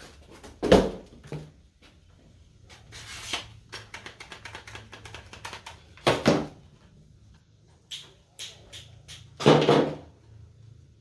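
Irregular knocks, clicks and clatters of hard objects being handled, with louder thuds about six and about nine and a half seconds in.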